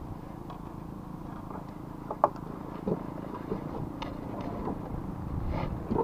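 Steady low hum of a motor, with scattered light clicks and knocks from handling rope and gear on a wooden raft; one sharp click about two seconds in is the loudest.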